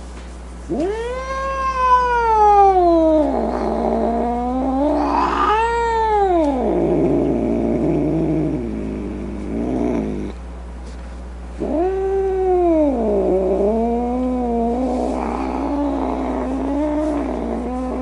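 Cat yowling: long, drawn-out calls that rise and fall in pitch, one after another with a short break near the middle, the last one wavering.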